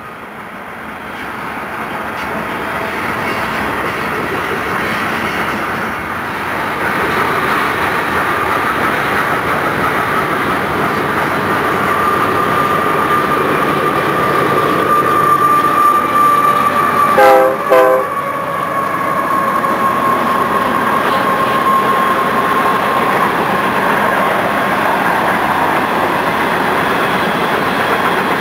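Union Pacific coal train of loaded hopper cars rolling past, the wheels clattering over the rails and growing louder over the first several seconds. A steady high-pitched wheel squeal runs through the middle, and a locomotive horn gives two short blasts about 17 seconds in.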